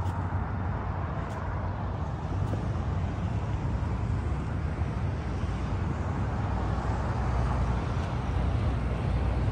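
Steady rumble and road noise of a moving vehicle, slowly growing a little louder towards the end.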